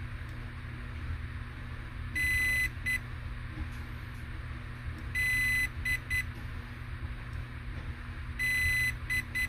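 Hobbywing Max6 ESC beeping out its programming items while the set button is held: three groups about three seconds apart, each one long high beep followed by one, then two, then three short beeps. Each group marks the next setting (items 6, 7 and 8) on the way to item 9, max reverse.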